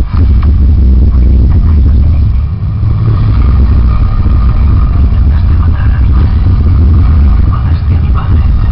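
Large sonidero sound system playing music at very high volume, its bass so heavy and loud that it buries everything else in a steady, dense low rumble.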